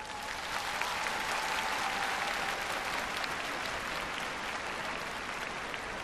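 Large arena crowd applauding, a steady dense clatter of many hands clapping, at the close of a figure skating performance.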